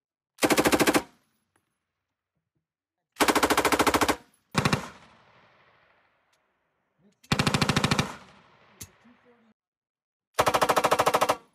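M249 light machine gun firing five short bursts of automatic fire, each lasting under about a second at roughly a dozen shots a second. The second and fourth bursts trail off in a fading echo.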